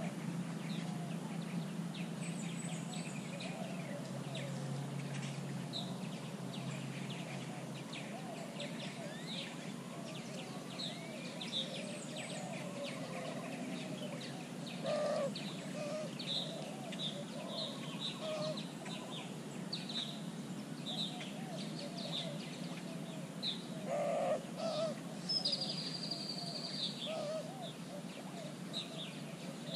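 Wild birds calling: a steady scatter of short, high chirps, with lower calls that grow louder about halfway through and again a few seconds before the end, and one drawn-out high whistle near the end.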